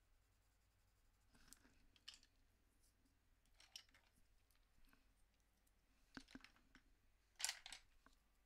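Faint scattered clicks and light knocks of wooden Prismacolor colored pencils being set down and another picked up, the loudest about seven and a half seconds in.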